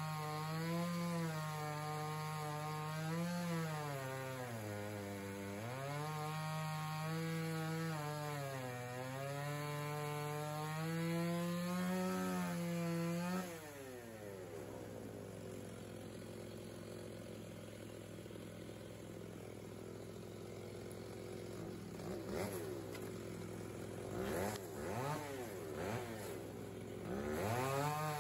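Two-stroke chainsaw cutting into a cherry log at full revs, its pitch sagging twice as the chain bogs in the wood. About 13 seconds in the throttle is released and the engine winds down to idle. Near the end it is blipped in several short revs.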